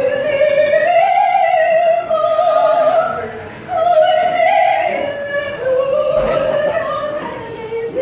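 A single high voice singing long operatic notes without accompaniment, with a wide vibrato; the singing breaks off briefly about three and a half seconds in.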